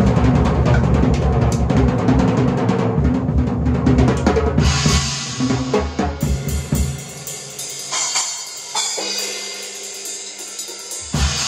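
Large drum kit played hard: a dense run of bass drum and tom strokes, then cymbals take over from about halfway with lighter strikes while the low drums drop out. A heavy bass drum and cymbal hit lands near the end.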